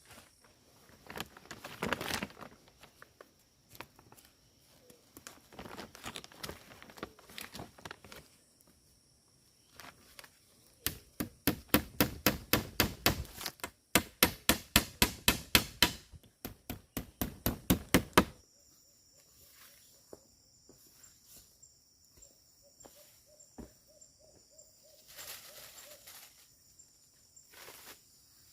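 A rapid, even run of sharp strikes, about five a second, starting about eleven seconds in, with a short break partway and stopping about eighteen seconds in; before it there are soft rustles. Afterwards, steady high-pitched insect calls buzz in the background.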